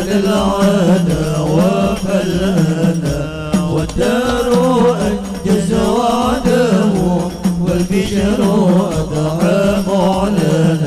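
Sholawat, Islamic devotional chant, sung with a slow, ornamented melody over musical accompaniment.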